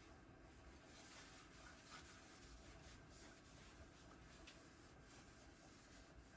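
Near silence: room tone with faint, light scratchy rustling.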